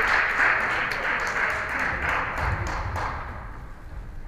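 Spectators clapping and cheering in a gym after a volleyball point is won, the applause dying away over about three seconds.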